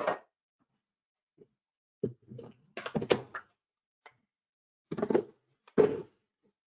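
Kitchen clatter: a series of separate knocks and clunks as a stainless saucepan is set down and a blender jug is handled and seated on its base. There is a cluster of knocks about two to three seconds in and two more clunks near the end.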